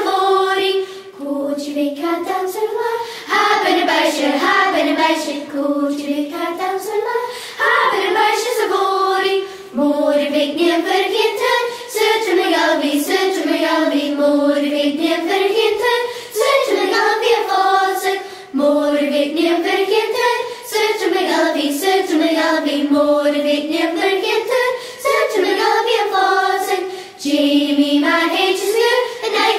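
A children's choir singing a Gaelic song: one melody line rising and falling in short phrases of about two seconds, with brief breaths between them.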